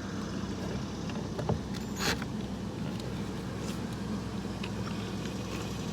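A car engine idling steadily, with a faint click about a second and a half in and a sharper click about two seconds in from hand work on the car door panel.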